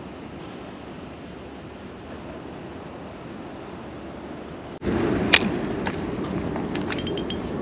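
Steady wind and sea noise. About five seconds in it turns louder, with one sharp click and then a quick run of clicks near the end from a fishing reel as the rod is cast.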